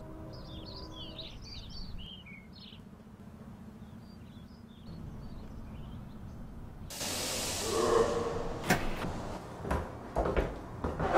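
Small birds chirping over a steady low rumble of outdoor ambience. About seven seconds in, a louder rushing noise starts, with several sharp knocks.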